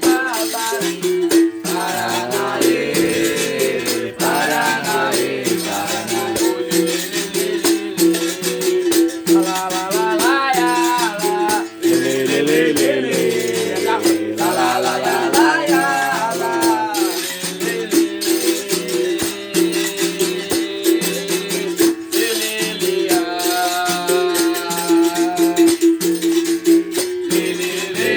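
Berimbau being played, its struck wire switching between a higher and a lower note in a steady rhythm, with a shaken caxixi rattle on the strokes. A voice sings over it in several stretches.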